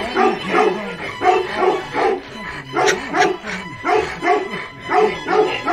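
Tibetan mastiff barking fast and steadily, about three deep barks a second.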